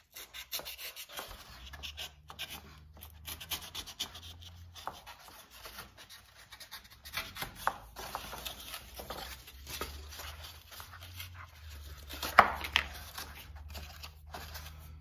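Craft knife cutting and scraping along the seam of a molded cardboard egg tray: a run of short scratchy strokes, with one sharper, louder crack about twelve seconds in. A low hum comes and goes underneath.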